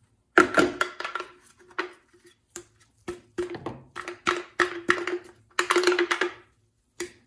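A Homelite XL chainsaw's hollow plastic housing being knocked and shaken by hand: a run of sharp knocks and rattles over about six seconds, each with the same short ringing note, as the oil-line filter inside is worked loose.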